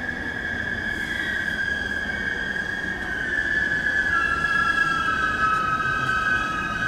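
A JR Yokohama Line electric train gives a high whine that slowly falls in pitch and steps lower about four seconds in, growing louder as it slows into the station.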